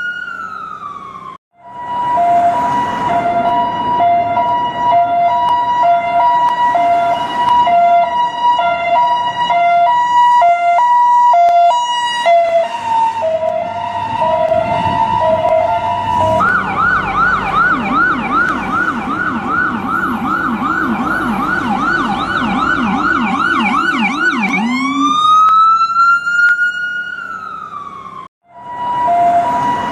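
US ambulance electronic siren switching between patterns. A wail falls away and breaks off, then a hi-lo two-tone alternates steadily for about fifteen seconds. A fast yelp follows for about eight seconds, then a slow wail rises and cuts off, and the hi-lo starts again near the end.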